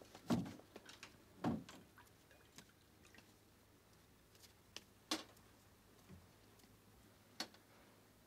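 Glass bottles and glasses clinking and knocking on a wooden table as they are handled. There are two fuller knocks in the first two seconds, then a few sharp single clicks.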